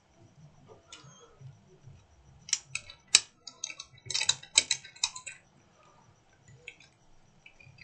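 Sharp clicks and taps of small metal repair tools against a phone's circuit board, a quick cluster of them in the middle, over a faint steady high tone and low hum.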